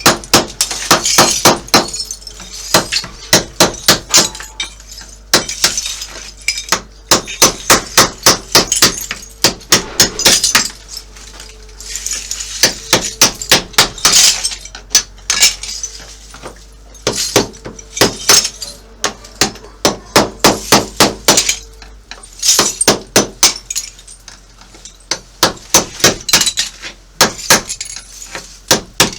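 Hammer blows driving a carbide chisel that chips ceramic tiles off a bathroom wall. The blows come in runs of a few quick strikes a second with short pauses, and the tile clinks and cracks as it breaks away.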